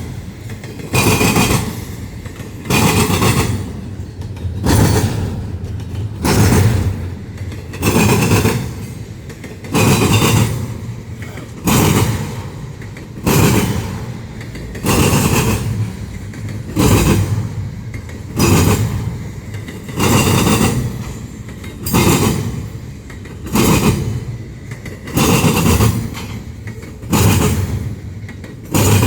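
Intermodal freight train cars rolling past, their wheels banging over a rail joint in a heavy clunk about every 1.8 seconds, one clunk per car, with rumble between the hits.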